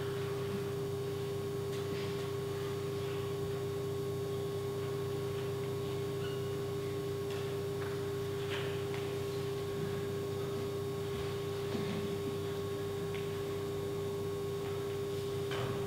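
A steady hum held at one pitch over a lower hum, with a few faint soft clicks scattered through it.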